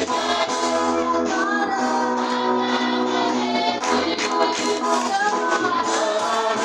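Church choir singing together, led by a woman's voice on a microphone, with rhythmic hand clapping.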